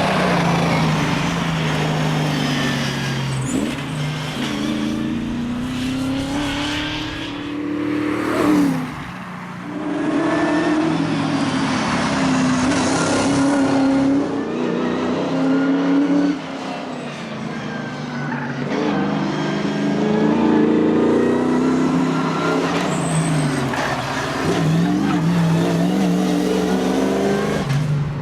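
Holden Torana's engine running hard, its pitch climbing and dropping again and again as it accelerates, changes gear and backs off.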